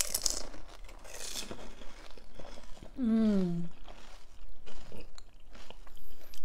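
Close-up chewing and crunching of panipuri, the crisp fried puri shells cracking in the mouth with small wet clicks. About three seconds in, a short voice sound falls in pitch.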